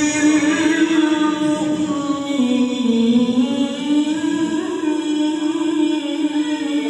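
A qori's voice in Qur'an recitation (tilawah), holding one long ornamented note that dips lower about halfway through and then rises back.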